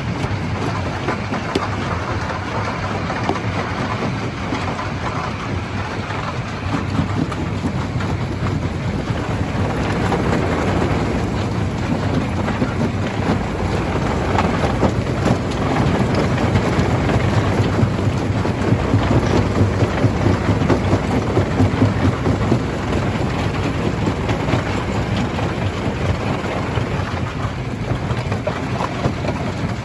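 Stone crusher running and breaking rock: a continuous rumble with dense crackling and clatter of stone being crushed, a little louder in the middle stretch.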